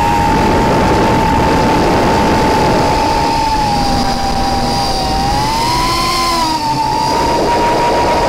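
Eachine X220 racing quadcopter's brushless motors and propellers whining in flight, heard from its onboard camera, over a rushing hiss. The steady whine dips slightly about five seconds in, then rises and falls back over the next two seconds as the throttle changes.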